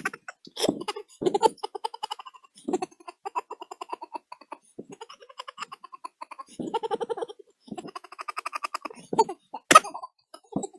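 Pitched-up, sped-up 'chipmunk' laughter: a high voice laughing in quick rapid pulses, in several bursts with short gaps between them, and a sharp loud burst near the end.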